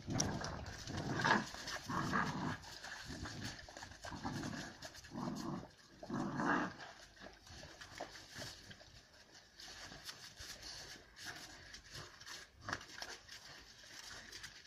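Two Central Asian Shepherd puppies fighting, with growls coming in a run of rough bursts over the first seven seconds or so, then quieter scuffling and panting.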